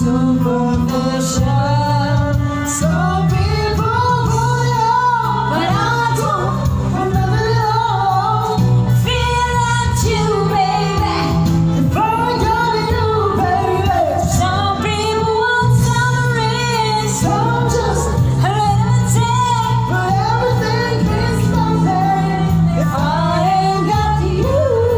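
A man and a woman singing a pop ballad duet into one corded microphone over a recorded karaoke backing track, taking turns and singing together.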